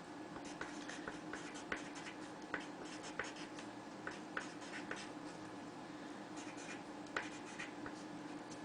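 Faint handwriting: a run of short scratching strokes as a list of numbers is written down.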